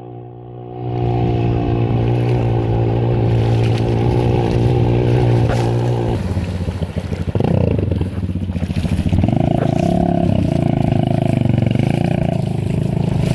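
Enduro dirt bike engine running at steady revs. About halfway through it changes to a rising rev and then uneven revving as the bike rides through a shallow river, with water spraying off the wheels.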